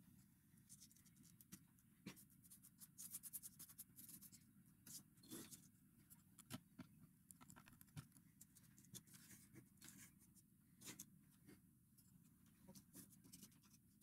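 Near silence, with faint irregular scratching and small clicks scattered throughout.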